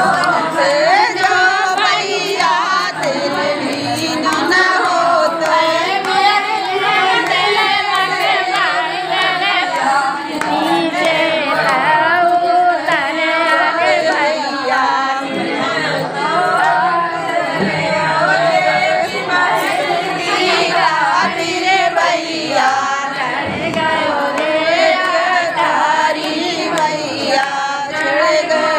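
A group of women singing a bhat geet, a North Indian folk wedding song, together in unison.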